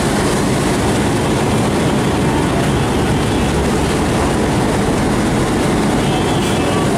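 Passenger train running, a steady loud rumble heard from a coach window.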